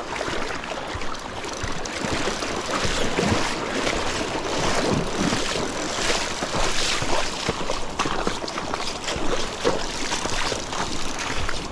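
Shallow, fast creek water rushing and splashing close by, with repeated short splashes.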